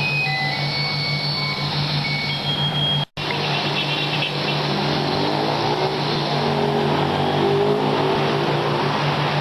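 A motor drones steadily under a rushing wind noise. The sound drops out for an instant about three seconds in.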